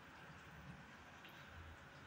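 Faint, steady sizzling of fritters deep-frying in hot oil in a kadai.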